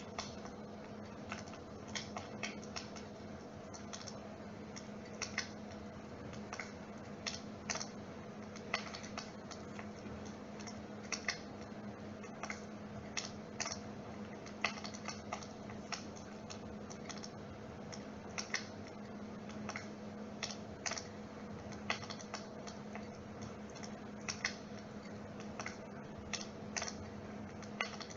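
Dimplex water-mist flame-effect unit running with a steady low hum, under irregular sharp crackling clicks like a wood fire.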